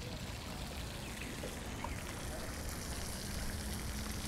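Steady outdoor background rumble with a faint low hum coming in about two seconds in.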